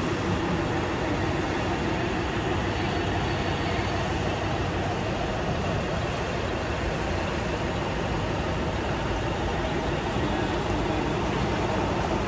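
Steady mechanical running noise of radio-controlled construction models at work, an even drone with no pauses.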